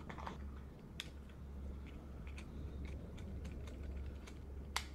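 Small objects being handled: scattered light ticks and taps, with a sharp click about a second in and a louder one near the end, from a metal flip-top lighter and a cigarette being picked up. A steady low hum runs underneath.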